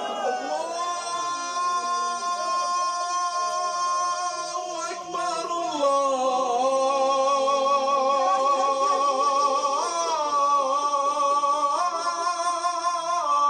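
A man chanting a mournful lament in long, wavering held notes. The melody drops about five seconds in and climbs again near the end.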